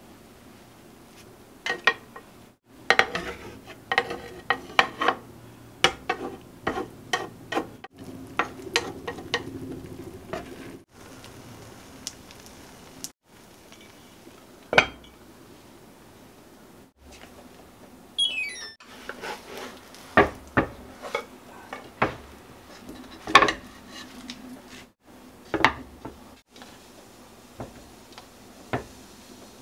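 A metal spoon and spatula tapping and scraping against a frying pan while an omelette sizzles lightly, in a run of sharp clinks that come thickest early on. Then dishes and a plastic tray knock and clink on a countertop as the food is plated.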